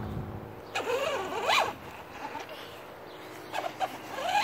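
Electric motor and plastic gearbox of a child's battery-powered ride-on toy quad with paddle tires, whirring with a steady low hum. A brief rising squeal comes about a second and a half in.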